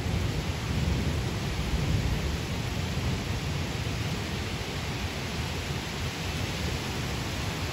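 Heavy thunderstorm rain pouring down with gusting wind: a steady hiss over a low rumble.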